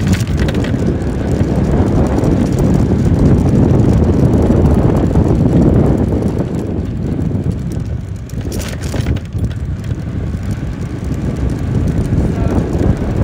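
Wind buffeting the microphone with scooter and road noise during a motor scooter ride: a loud, steady low rush. Two brief knocks break through, one at the very start and one about two-thirds of the way through.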